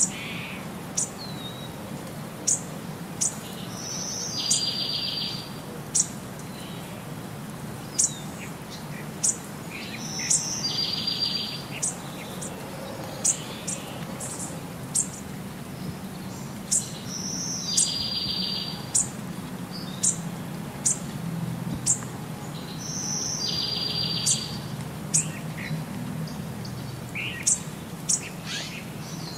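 A looped recording of birds chirping: sharp high chirps and a short buzzy trill, the same pattern repeating about every six and a half seconds over a low steady hum.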